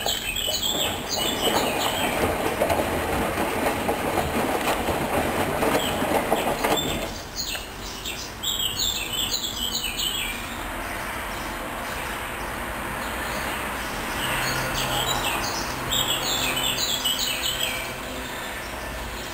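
Hoover washing machine running a wash cycle with a duvet in the drum. The drum turns with a dense mechanical noise that is louder for the first seven seconds, then settles lower, with bursts of repeating high squeaky chirps.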